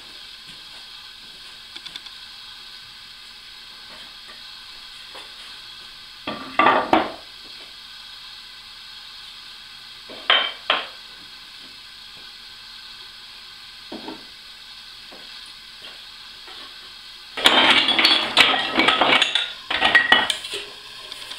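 Wooden offcuts knocking and clattering: two short clatters of scrap boards being handled, then a dense wooden clatter for about three seconds near the end as a box of scraps is tipped out onto a workbench pile.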